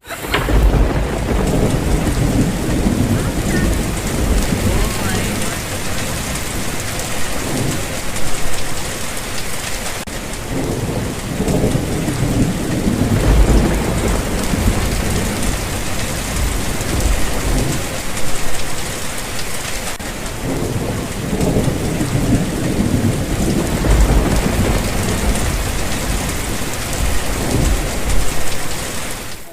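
Heavy rain pouring steadily, with low thunder rolling in and fading several times, loudest at the start, around the middle and again a little past two-thirds through.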